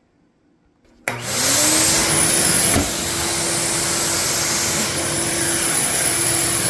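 Shop vac switched on about a second in, its motor whine rising quickly and then running steadily with a loud rushing hiss of suction, as it picks up floodwater. A brief knock sounds a couple of seconds in.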